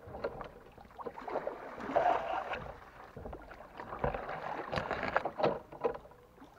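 Water splashing and sloshing around a small boat or kayak, like paddle strokes, coming in two swells a few seconds apart with a few knocks.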